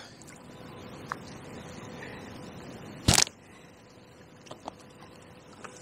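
A steady low hiss, broken about three seconds in by one short, sharp snap, after which the background is quieter.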